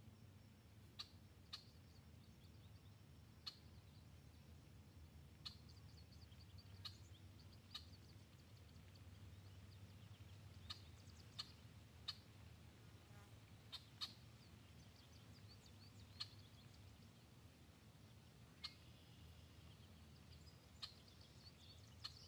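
Near silence: a faint low hum with scattered short, faint, high-pitched ticks every second or two.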